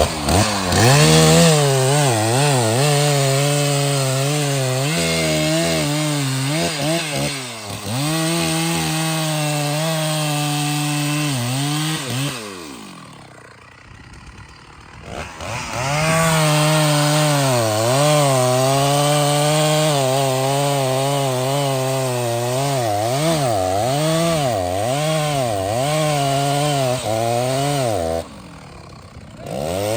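Large two-stroke chainsaw at high revs cutting through trembesi wood, its note wavering up and down as the chain bites. About halfway through the throttle is let off and the revs fall to a low idle, then it revs back up and cuts again. It drops off once more near the end.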